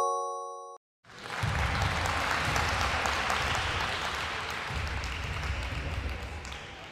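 A short rising chime cuts off under a second in; after a brief gap, crowd applause comes in and keeps going, slowly fading toward the end.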